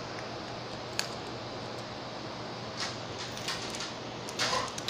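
A plastic action figure's wings being flapped by hand, heard as a single sharp click about a second in and a few faint handling sounds over a steady room hum. A dog begins to bark right at the end.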